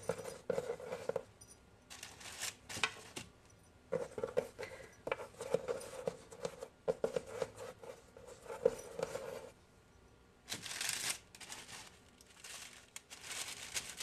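Hands rolling and shaping soft sweet potato bread dough on a floured wooden board: stretches of rubbing and scraping, with a few louder rustles as the loaf is handled.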